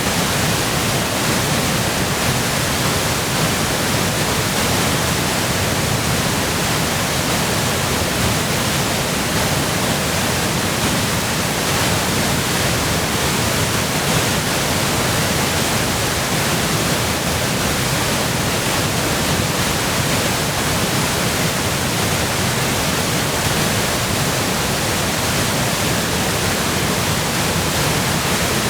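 Waterfall in heavy flow from spring melt and rain runoff: a steady, loud rush of falling water with no let-up.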